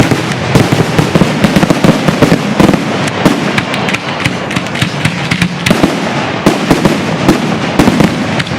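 Fireworks finale barrage: aerial shells bursting in rapid succession, many sharp bangs overlapping with crackling and no pauses between them.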